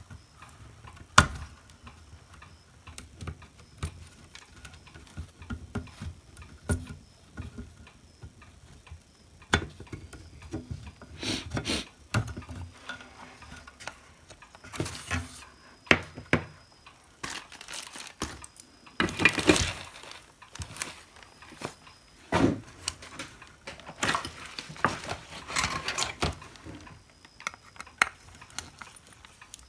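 Small tools and parts clicking, knocking and scraping as a glued hot air gun handpiece is worked apart by hand, with a few short scraping rasps.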